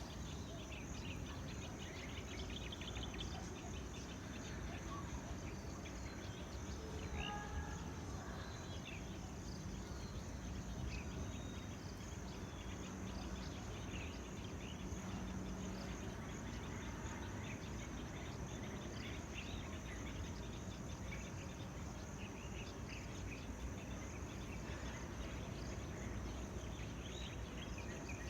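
Tropical outdoor ambience: a steady high-pitched insect drone with scattered short bird chirps over a low background rumble.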